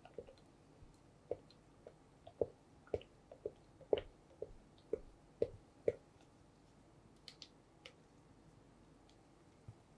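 Spatula stirring thick cream cheese batter in a bowl: soft wet squelches about twice a second, mixing melted gelatin into the cheesecake batter. About six seconds in the stirring stops, leaving only a few faint ticks.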